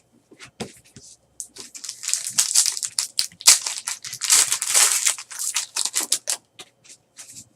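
Crinkly plastic trading-card packaging being handled: a run of crackling and rustling, loudest through the middle few seconds, with short clicks and taps before and after.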